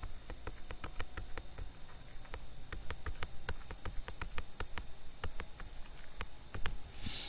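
Light, irregular clicks and taps, a few a second, of a stylus on a writing tablet while handwriting.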